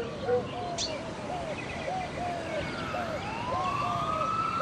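Police sirens: a run of short rising-and-falling yelps, about three a second, then a long wail that climbs from about three seconds in.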